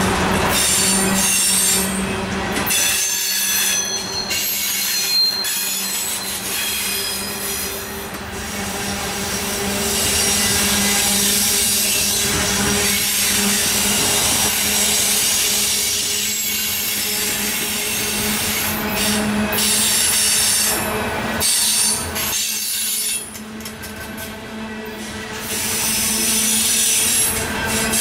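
Loaded coal hopper cars of a freight train rolling past on the rails, with the rumble of the wheels and high-pitched wheel squeal, strongest in the first few seconds.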